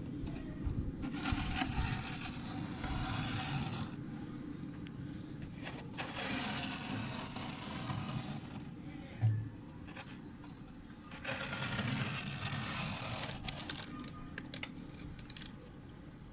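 Bare fingers scraping and scooping soft frost off the walls of a freezer compartment, in three spells of scraping with pauses between. A low steady hum runs underneath, and there is a single dull thump about nine seconds in.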